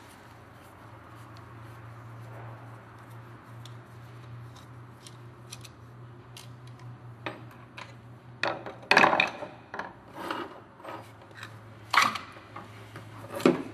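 Scraping and clicking of a screwdriver working against the metal gear housing of a disassembled wet stone polisher as the armature is pried out, with several louder metal clanks in the second half. A low steady hum runs underneath.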